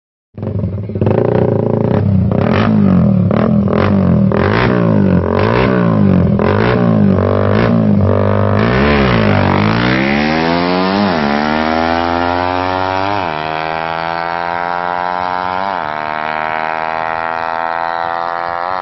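Motorcycle engine fitted with an aftermarket CDI and a Daeng exhaust pipe being revved. For the first eight seconds or so the throttle is blipped in quick short revs, then the engine climbs in one long rising rev with two brief dips before settling at a high steady pitch.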